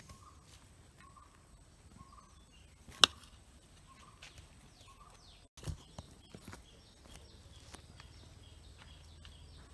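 Soft crinkling and clicks of a steamed banana leaf being peeled open by hand on a ceramic plate, with one sharp click about three seconds in. A bird calls repeatedly in the background.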